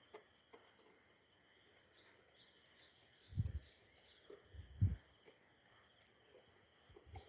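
Crickets chirring steadily in the background, with two dull low thumps about three and a half and five seconds in.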